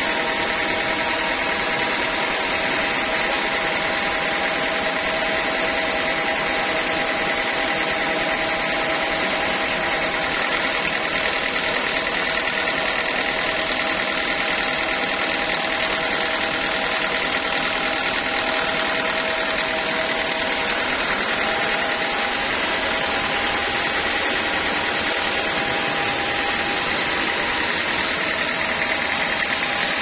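Band sawmill running steadily without cutting, a constant machine hum with a few steady whining tones that does not change.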